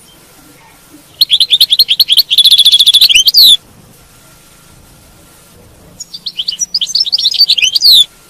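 European goldfinch singing in two bursts of rapid, high twittering and trills. The first starts about a second in and lasts a little over two seconds; the second comes near the end.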